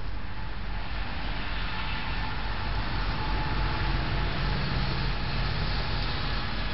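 Steady rumble of distant vehicle traffic under the trail camera's microphone hiss, with the low rumble swelling about halfway through and easing toward the end, as if a vehicle is passing in the distance.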